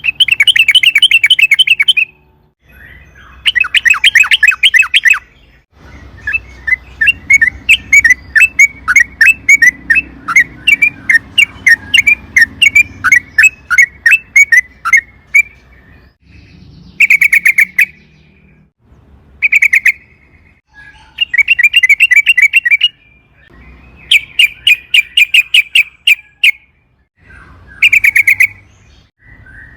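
Yellow-vented bulbul (trucukan) singing in bursts of rapid, bubbly chattering notes. About six seconds in, one long unbroken run lasts around ten seconds. Shorter phrases of a second or two follow, with brief pauses between them.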